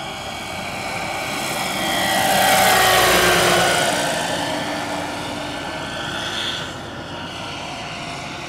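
Large electric RC scale model of a Bell AH-1Z Viper helicopter, with a four-blade 2.1 m main rotor driven by an Align 850MX motor, flying a low pass. The rotor and motor sound swells to its loudest about three seconds in, then drops in pitch and fades as the helicopter moves away.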